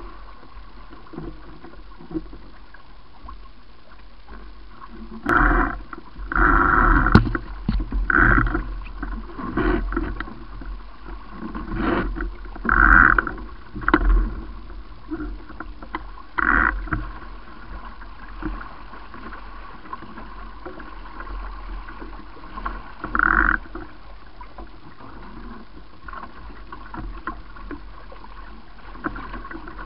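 Paper Tiger catamaran under sail: water rushing past the hulls and wind on the on-board camera, with irregular louder gusts buffeting the microphone, several between about five and seventeen seconds in and another near twenty-three seconds.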